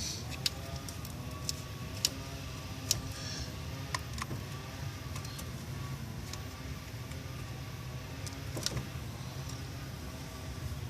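Scattered sharp clicks and taps of hands and tools working at the alternator's wiring connectors, over a steady low hum.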